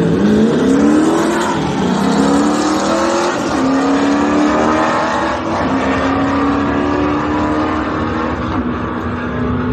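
Car engine at full throttle on a drag-strip run: the engine note climbs from the launch, drops back three times as it shifts up, and each later climb is slower.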